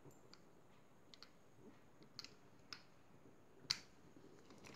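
Near silence broken by a handful of faint, sharp clicks from handling a CO2 air pistol with the CO2 cartridge in its open grip, the sharpest click near the end.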